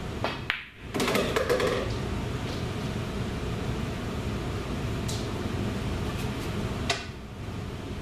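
Pool shot on a home table: two sharp clicks a fraction of a second apart as the cue tip strikes the cue ball and the cue ball hits the object ball. Then, from about a second in, a louder run of knocks and rattle as the ball drops into a pocket. Two more single clicks come later, over a steady background hum.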